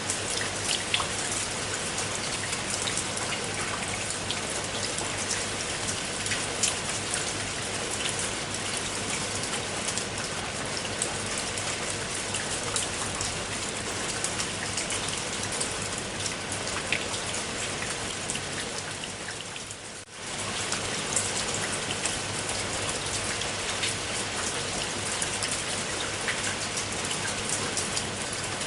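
Steady rain falling, with individual drops ticking out sharply over the even hiss. The sound dips briefly and comes back about two-thirds of the way through.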